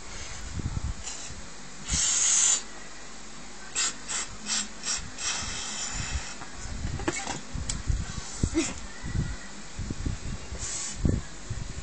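A child blows up a latex balloon by mouth: short puffs of breath rush into it, one long and loud about two seconds in and a run of quick ones a few seconds later. Low knocks and rubbing come from hands handling the balloon near the phone.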